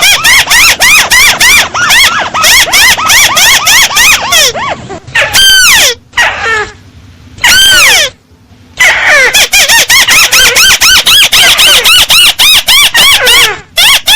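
Crake (Indonesian 'tikusan sawah') calling: a fast run of sharp, squealing notes that each rise and fall in pitch, about three a second. Near the middle the run breaks into a few longer, falling notes and a short pause before the fast series resumes.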